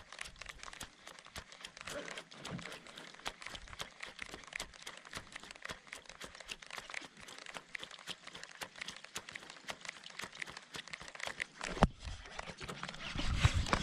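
Baitcasting reel being cranked during a lure retrieve: a fast, irregular crackle of small clicks. There is a sharp knock about twelve seconds in and a low rumble of handling near the end.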